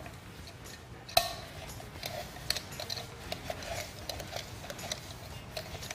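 Small white serving bucket (balti) being picked up and handled: a sharp clink about a second in, then a run of light clicks and taps.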